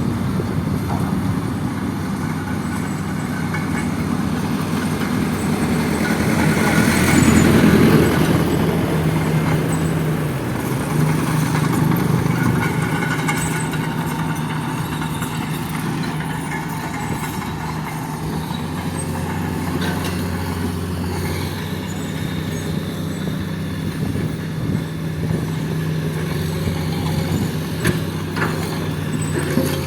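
Heavy diesel engine of the construction machinery running steadily, swelling louder for a couple of seconds about a quarter of the way in, then settling back to an even run.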